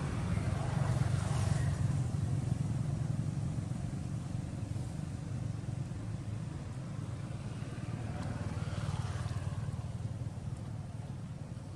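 A steady low engine rumble, like motor traffic, swelling around the first second or two and again about eight to nine seconds in as a vehicle seems to pass.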